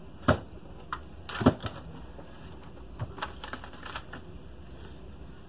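Handling noise on a workbench: a few sharp clicks and knocks as the small metal amplifier case and loose parts are moved. The loudest cluster comes about a second and a half in, followed by lighter ticks.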